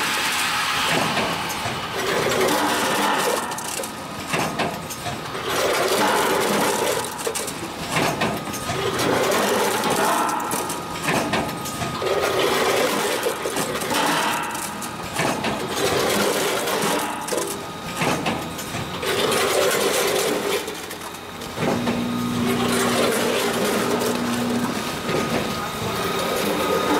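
Multi-head weighing snack packaging machine running, its working cycle repeating about every two seconds. A steady low hum joins for a few seconds near the end.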